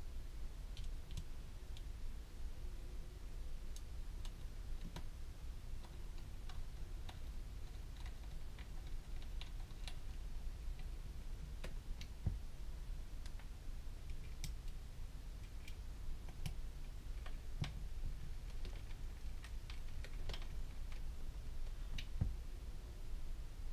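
Hand screwdriver driving the last small screws into an airsoft gearbox shell: scattered light clicks and ticks of the metal tool, screws and parts being handled, over a low steady hum.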